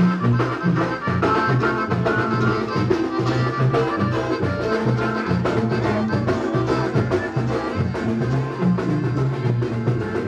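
A Mexican banda brass band playing an instrumental passage between sung verses. A tuba-style bass line moves in steps under brass melody, with a steady beat from the drums and cymbals.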